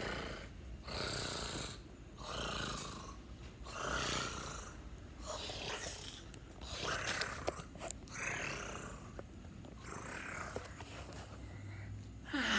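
A person breathing heavily, a run of noisy, hissing breaths with no voice, roughly one a second.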